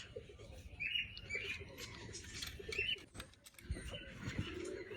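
Faint bird calls: a few short chirps, with some light clicks.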